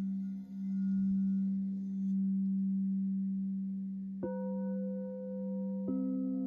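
Alchemy crystal singing bowls ringing: a low bowl holds a steady tone that swells and fades slowly, then a higher bowl is struck about four seconds in and another near the end, each ringing on over the first.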